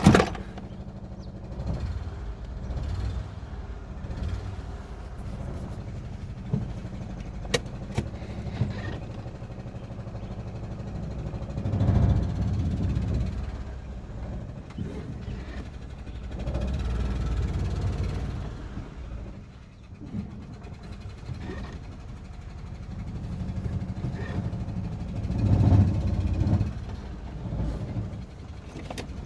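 2011 Renault Sandero's 1.6-litre engine running, getting louder for a few seconds three times, with a few sharp clicks about a quarter of the way in. By the owner's ear the exhaust note shows the engine still lacks power, though it shakes less than before; the misfire problem persists.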